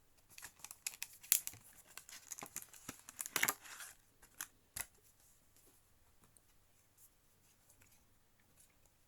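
Plastic packaging of an SSD crackling and rustling as it is handled and opened, a quick run of crackles lasting about four seconds, followed by a single sharp click.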